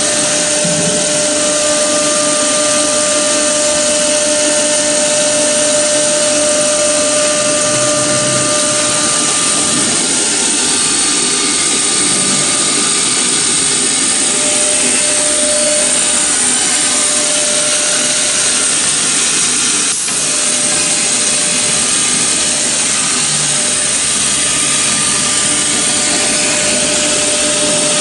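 CNC drilling machine's spindle running steadily while machining foam: a continuous high hiss with a steady whine.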